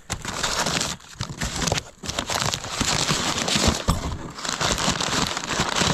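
Wrapping or packing material crinkling and rustling as items are handled and unwrapped from a box, in three stretches with short breaks about one and two seconds in.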